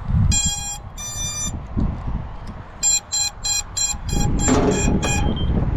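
Power-up beeps from an FPV quadcopter's motors, sounded by its ESCs as the battery is plugged in. There are two longer tones, then a run of about seven short beeps at roughly three a second, over low handling noise. The beeps show the drone has come alive after a capacitor was fitted.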